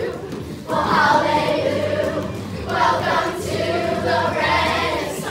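A musical-theatre song with a chorus of voices singing over instrumental accompaniment, in long held phrases.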